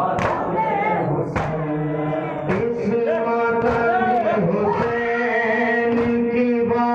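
A group of men chanting a noha, the Shia lament for Hussain, with long held sung notes, and sharp chest-beating (matam) slaps about once a second.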